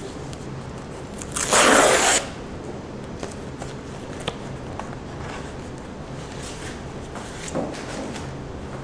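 Plastic courier mailer being ripped open: one loud tearing rip about a second and a half in, lasting under a second, followed by light rustling and small taps.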